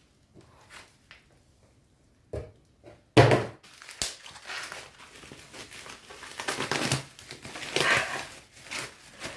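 Packaging being handled as a shipping box is opened: a knock and a thump a few seconds in, then crinkling and rustling of packing material.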